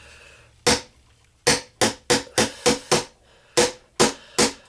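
Hammer striking a chisel into a plaster treasure-dig block, about ten sharp ringing blows at roughly three a second, with a short pause about three seconds in.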